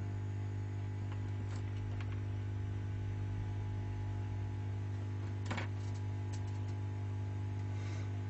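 Hot air rework station blower running with a steady electric hum, heating the phone's charging port to free it from the board. A few light clicks over it, the clearest about five and a half seconds in.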